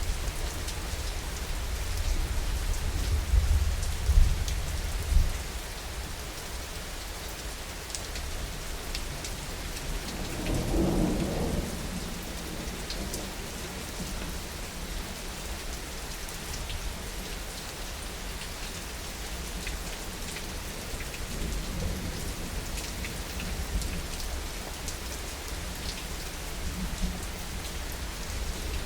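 Steady heavy rain hissing, with rolling thunder rumbling low, strongest in the first few seconds and swelling again about ten seconds in.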